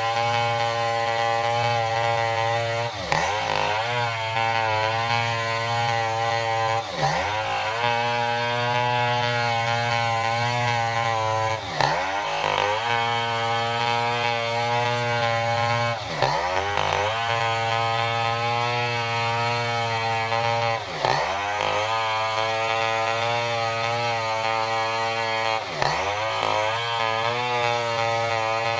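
Stihl 070 two-stroke chainsaw running at high revs while ripping through a durian log. Its pitch dips briefly and climbs straight back about every four to five seconds, six times in all.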